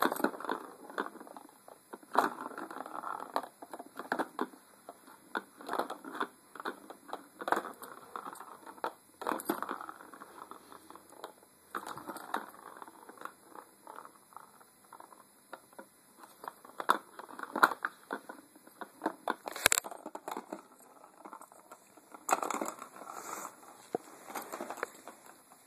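Cardigan Welsh Corgi puppy playing with a plastic ball-track cat toy on carpet: irregular knocks, scrapes and rustles in short bursts, with one sharper click about three-quarters of the way through.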